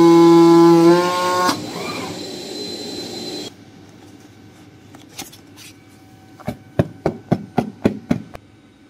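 Oscillating knife head of a CNC foam cutting machine running with a steady pitched hum. Its pitch rises slightly about a second in, and it stops with a click about a second and a half in. Near the end comes a quick run of about eight light knocks as the cut EVA foam pieces are handled.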